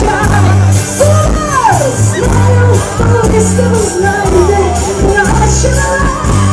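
Live pop music played loud over a concert PA, with a heavy bass line changing note every second or so and voices singing over it. It is heard from right by the loudspeakers, so it comes through loud and harsh.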